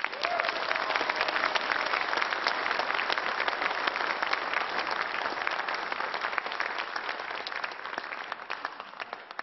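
Audience applauding, many hands clapping together, starting at once and slowly dying away near the end.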